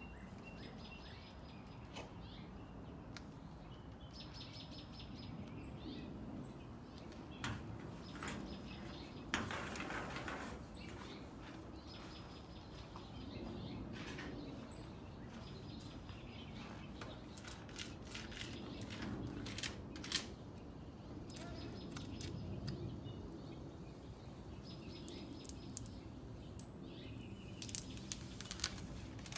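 Small birds chirping in short, repeated calls over a steady outdoor background hum. A few brief rustles and light clicks are mixed in, the most noticeable rustle coming about ten seconds in.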